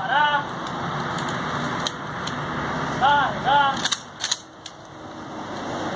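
Police vehicle sirens giving short rising-and-falling chirps: one just after the start, then a pair half a second apart about three seconds in, over steady engine noise. A few sharp cracks come about four seconds in.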